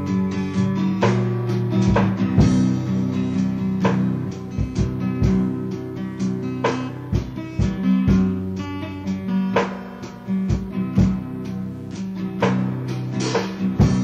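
Instrumental passage of a rock song played back from a cassette tape: guitar over a drum beat.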